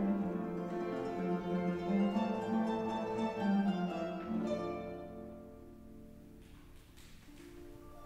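Paraguayan harp played solo: a flowing run of plucked notes that thins out about halfway through and fades to a soft, sparse passage.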